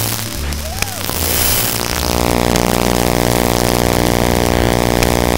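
Loud, harsh, heavily distorted noise that settles about two seconds in into a steady, buzzing drone.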